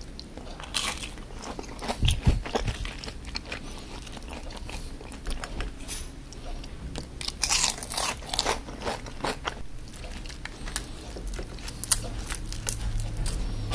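Crispy deep-fried opo squash fritters (Burmese buu thee kyaw) being bitten and chewed: irregular crisp crunches, heaviest about two seconds in and again around eight seconds in.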